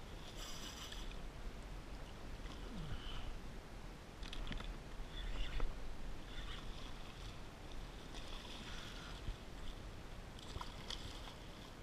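Water splashing and lapping around a kayak as a hooked fish thrashes at the surface, with a few short sharp ticks and splashes, the loudest about halfway through.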